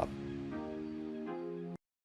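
Background music of soft, sustained chords that change twice, then cut off abruptly near the end into silence.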